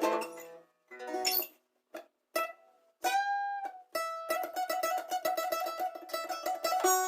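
Solo guitar playing: separate plucked notes and chords with short pauses between them, then one note picked very rapidly over and over (tremolo picking) from about four seconds in until it stops near the end.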